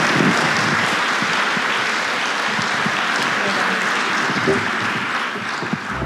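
Audience applauding steadily, thinning slightly near the end.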